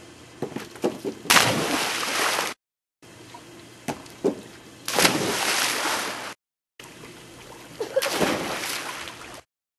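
Three people in turn jumping off a diving board into a swimming pool, each landing in a loud splash of water lasting about a second, about a second, five seconds and eight seconds in. A few short knocks come before each splash, and brief dead silences fall between them.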